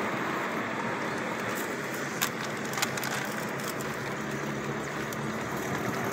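Car engine and road noise heard from inside the cabin while driving, steady throughout, with a couple of brief clicks a little after two seconds in.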